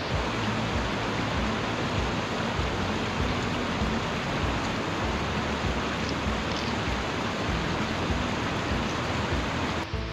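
Rushing mountain stream: a steady rush of white water tumbling over rocks.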